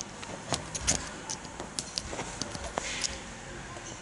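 Scattered light clicks and taps of hands working the airbag connector plug loose behind the steering wheel.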